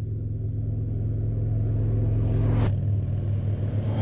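Motorcycle engines rumbling as the bikes approach, the sound growing slightly louder. There is a sudden change about two and a half seconds in.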